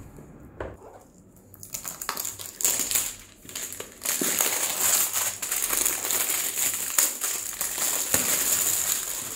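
Plastic shrink wrap being peeled off a cardboard box by hand: a few light clicks at first, then continuous crinkling of the film from about two seconds in, louder from about four seconds on.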